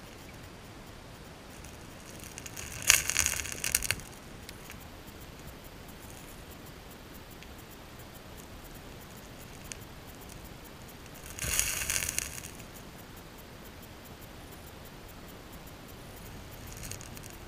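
Underwater recording in a stream: a steady hiss of flowing water, broken twice by about a second of crackling and rattling, typical of gravel stirred as spawning chinook salmon sweep their tails over the stream bed, with a fainter rattle near the end.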